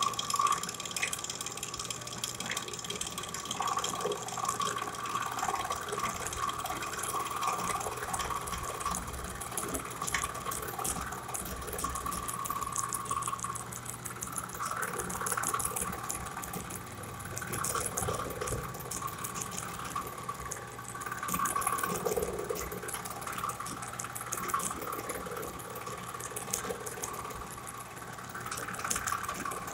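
Handheld electric power tool running with a steady whine as its bit cuts into a wooden airgun stock, the cutting noise swelling and fading as it bites into the wood.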